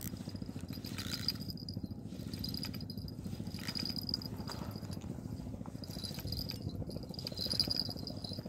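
Spinning reel being cranked to retrieve braided line, its gears whirring with a fast, fine, even ticking.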